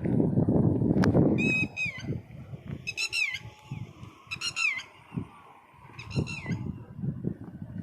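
A bird calling over and over: about four short pitched calls, each ending in a falling note, roughly a second and a half apart. A low rumbling noise runs under the first two seconds.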